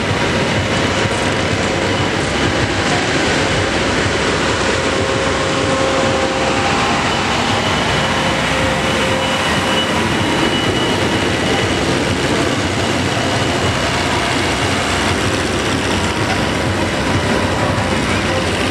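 Farm tractor diesel engines running, a loud, steady rumble that neither rises nor falls.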